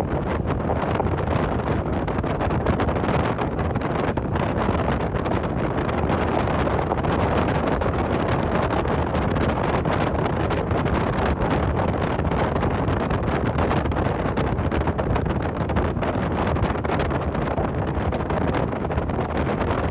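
Steady wind rushing over the microphone, mixed with the road noise of a car driving along.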